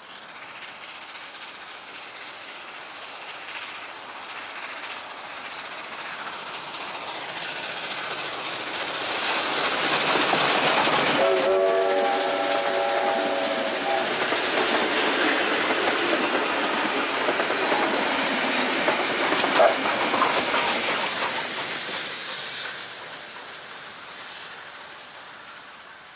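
Steam-hauled passenger train approaching and passing, its rolling noise growing louder, with a steam locomotive's whistle sounded for about three seconds just after the train draws level. Carriages clatter over the rail joints as the train goes by, then the sound dies away near the end.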